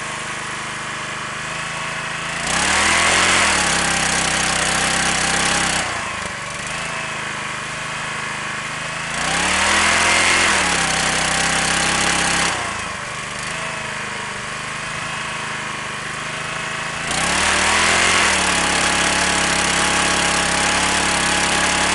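Small portable petrol generator running steadily, loaded three times for several seconds by an electric machine plugged into its socket; at each load the engine's pitch dips and climbs back as it takes the strain, and it runs louder until the load drops off. The driven machine is not revving quite enough.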